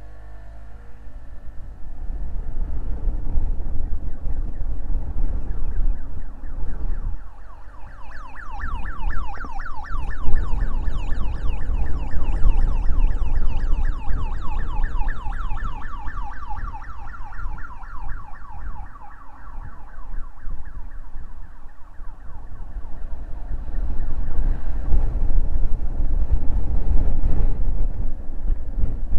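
Low wind rumble and road noise from a Honda Forza 125 scooter ride. From about eight to eighteen seconds in, a rapidly warbling electronic siren comes up over it and fades away.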